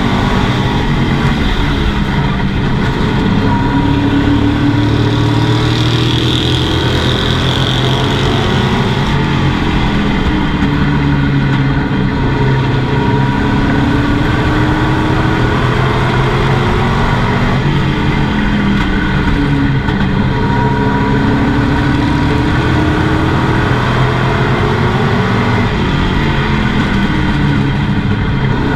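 Pro Truck race truck's engine at racing speed, heard from inside the cab. The engine note rises and falls over and over as the truck accelerates and backs off around the track.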